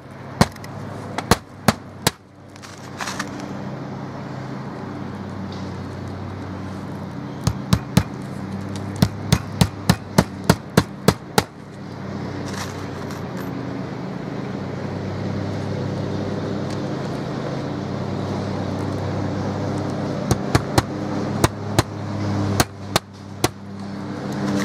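Claw hammer driving roofing nails through the edge of a Kwik Plug roof patch (galvanized steel over OSB): sharp strikes in quick runs with pauses between, as each nail is set and driven home. A steady low mechanical hum runs underneath.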